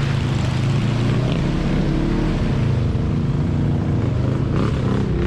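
Side-by-side UTV's engine running steadily as it drives through an off-road mud track, its pitch rising near the end as it revs up.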